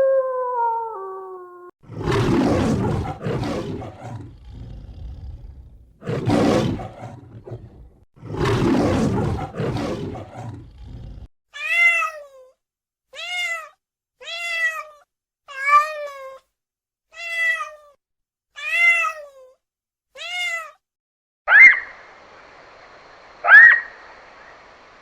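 A run of animal calls: the end of a long howl, then three rough roars from a big cat, then nine short meow-like cat calls about a second apart, each falling in pitch. Near the end come two sharp, short calls over a faint steady hiss.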